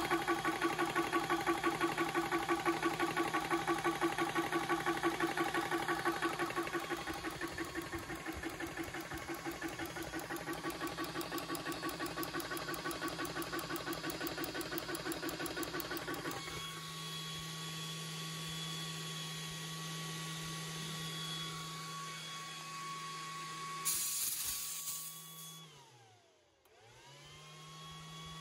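Hatsan Tactair Volt portable PCP compressor pumping with a rapid, even pulse of piston strokes; about halfway through the pumping stops as it reaches its set pressure and shuts off automatically, leaving the cooling fans humming. Near the end there is a short hiss of released air, then the hum winds down and starts up again.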